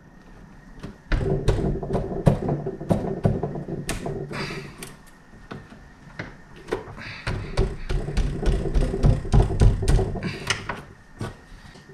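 Sharp wood chisel paring out a door's latch mortise by hand, in two spells of quick scraping and tapping strokes with a short pause between. The mortise is being cut deeper so the latch plate sits flush.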